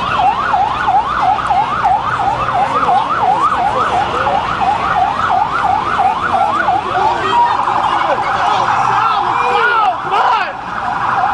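Emergency vehicle siren on a fast yelp, sweeping up and down about three times a second; a little after seven seconds it gives way to slower, overlapping siren sweeps from more than one vehicle.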